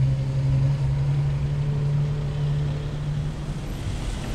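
A car engine running steadily at low revs, a low even drone that fades away about three and a half seconds in, leaving street traffic noise.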